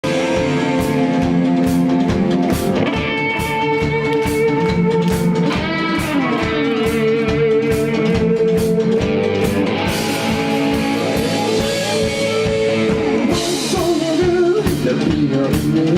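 Live rock band playing the instrumental opening of a song: electric guitar over a steady drum beat.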